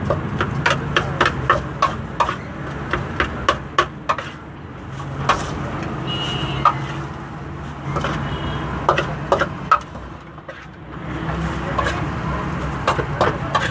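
Metal spoon clinking and scraping against a steel platter as diced potato chaat is stirred and scooped, in quick runs of sharp taps that thin out midway and pick up again near the end. A steady rumble of road traffic runs underneath.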